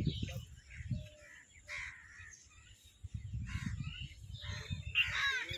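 Crows cawing over and over, short calls about every half second to a second. From about halfway through, a low wind rumble on the microphone joins them.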